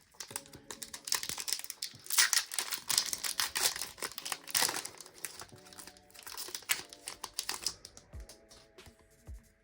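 Foil wrapper of a Pokémon trading card booster pack crinkling as it is torn open and handled, dense crackling that stops about two seconds before the end.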